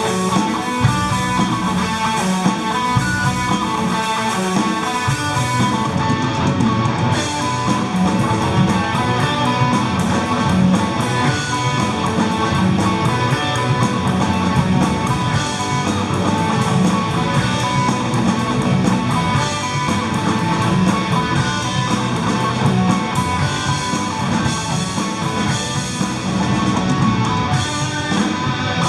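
Rock band playing live, with electric guitar and a drum kit, cymbal strokes keeping a steady beat; the cymbals drop out briefly about six seconds in and come back a second later.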